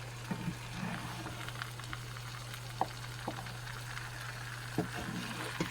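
Potatoes frying with a steady, even sizzle over a low hum, with a few light clicks or taps partway through.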